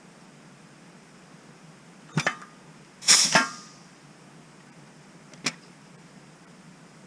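Metal clanks from a benchtop riveting machine setting AN426-4 countersunk rivets in the aluminium VS-5 part: a sharp clack about two seconds in, a louder double clank with metallic ringing about a second later, and a lighter click near the end.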